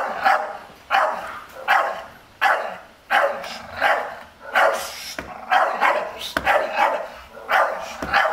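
Staffordshire Bull Terrier barking over and over at a stranger at the yard wall, about three barks every two seconds, in a steady rhythm. This is guard barking: the dog is warning off a person it does not know.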